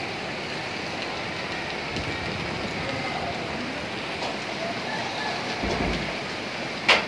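Steady rushing noise of heavy rain and a swollen, muddy flood river in spate, with a sharp knock near the end.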